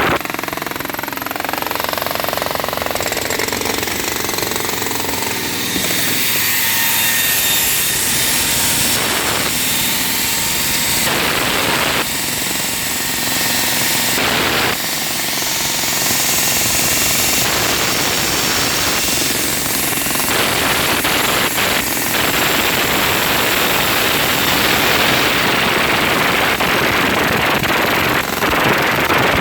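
Jackhammer breaking concrete, hammering rapidly and without stopping.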